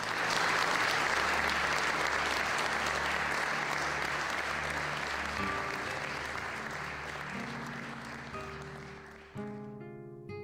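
Audience applauding, starting at once and slowly dying away, with soft music underneath. Near the end, plucked acoustic guitar notes come in.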